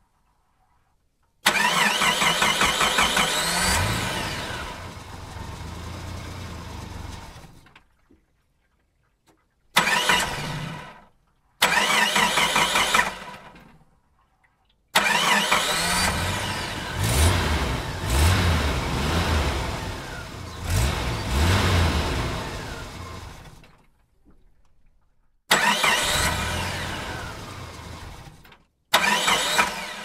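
A series of separate engine start-ups, six in all, each beginning abruptly and dying away, with short silences between them. The longest, in the middle, has the engine revved several times before it fades.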